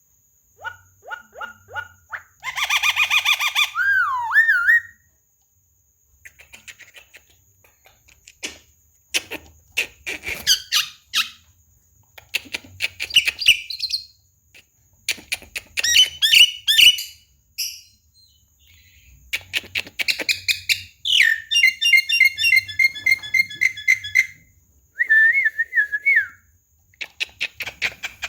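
Javan myna calling and chattering: a varied run of whistles, gliding squeaks and fast rattling clicks in bursts separated by short pauses.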